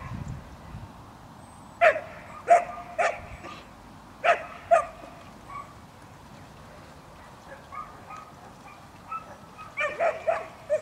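Border collie barking in short, sharp barks as it herds the sheep. Three barks come about two to three seconds in, two more just after four seconds, and a quick run of barks near the end.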